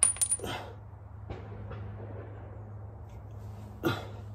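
Sharp metallic clinks, one with a brief high ring, then light handling ticks and a single knock near the end, as the TH400 transmission filter's tube and small metal parts are pulled down and handled.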